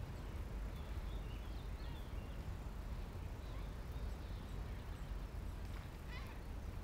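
Scattered bird chirps over a steady low background rumble, with a short rising-and-falling call near the end.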